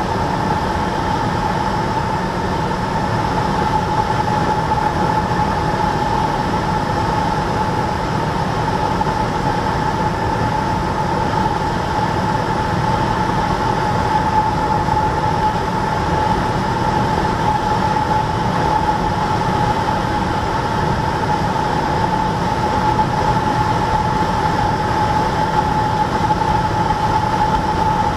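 Cessna 172's piston engine and propeller running steadily in cruise flight, heard inside the cabin as an even drone with one clear steady tone running through it.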